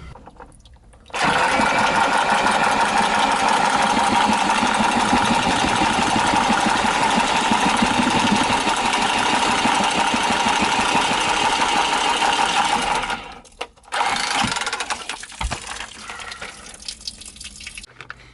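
A handheld power tool's motor starts about a second in, runs steadily for about twelve seconds, and stops.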